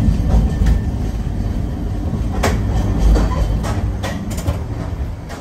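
Nagasaki Electric Tramway streetcar running on street track, heard from inside at the front of the car: a low rumble, with several sharp clacks of the wheels on the rails from about halfway through. The rumble grows quieter near the end as the tram slows approaching its terminus.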